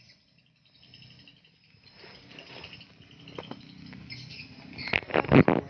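Stick (shielded metal arc) welding on hollow steel tube: the electrode's arc crackles and sizzles steadily, with louder crackling bursts near the end.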